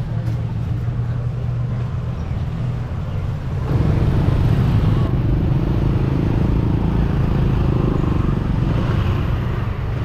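Street traffic with motor scooters passing close by; the low engine rumble gets clearly louder about three and a half seconds in and holds.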